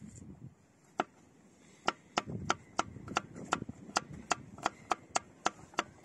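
Knife chopping on a wooden cutting board in quick, even strokes, about three a second, starting about two seconds in after a single stroke at about one second.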